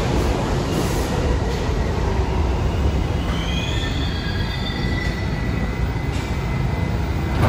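New York City subway train running through the station with a steady low rumble; about three seconds in, its wheels begin to squeal in several high, wavering tones that continue to the end.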